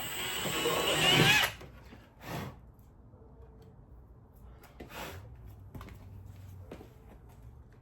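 Power rivet gun running as it pulls a rivet into the car's fender filler panel, building up and cutting off suddenly about a second and a half in; a shorter burst follows a second later, then another and a few light clicks.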